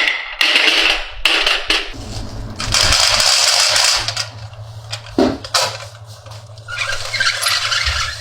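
Marbles rolling and clicking along a marble run track, with scattered clacks and a short rattle near the end.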